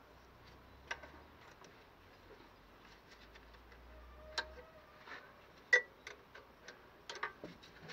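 Two spanners working the throttle cable's nuts at the carburettor: scattered light metallic clicks and clinks, irregularly spaced, with one sharper clink a little before six seconds in.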